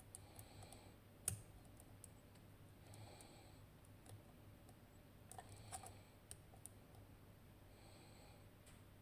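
Faint metallic clicks and scraping of a lock pick working the split wafers inside a Tokoz Tech lock cylinder during single-pin picking, with one sharp click about a second in and a cluster of small clicks around the middle.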